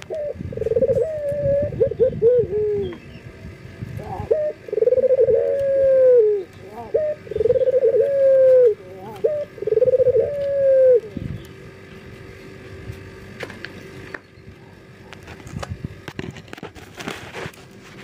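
Male ringneck dove (local puter) cooing in breeding condition, calling to a female: about four long rolling coos with shorter notes between them, stopping about eleven seconds in.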